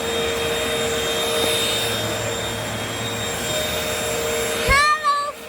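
Vacuum cleaners running steadily, a hum with a whine through it. Near the end the hum drops away after a thump, and a short high-pitched squeal follows.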